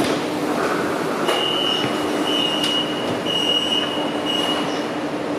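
Saloon doors of a CRRC Changchun-built metro car unlocking with a click and sliding open with a short hiss. The door chime then beeps a high, steady tone about once a second, four times. A steady low hum from the train runs underneath.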